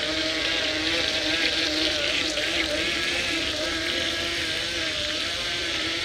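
The small electric motor of a remote-control speedboat running steadily: a buzzing whine that wavers slightly in pitch, over a hiss of water from its wake.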